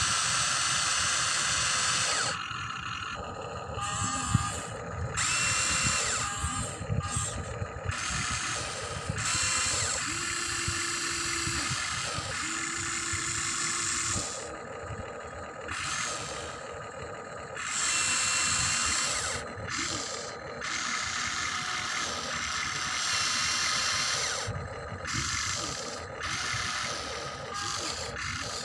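Electric motors and gearboxes of a Huina remote-control excavator whirring as the boom, arm and bucket dig and swing, stopping and starting every second or two.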